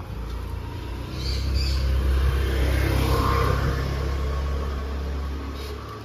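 Motor vehicle engine rumble, growing louder about a second in and easing off near the end, as of a vehicle passing close by.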